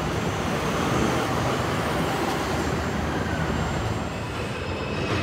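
City street traffic: cars and an MTA city bus driving past, a steady wash of road noise.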